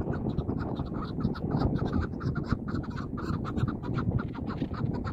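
Chukar partridges calling in a fast, continuous run of short clucking notes, several a second, with low wind rumble on the microphone.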